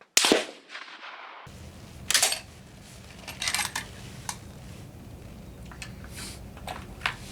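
A single rifle shot from a Swiss K31 straight-pull rifle in 7.5x55 Swiss just after the start, its report fading over about a second, followed by scattered light metallic clicks and clatter as the rifle is handled after the last shot of a 20-round string.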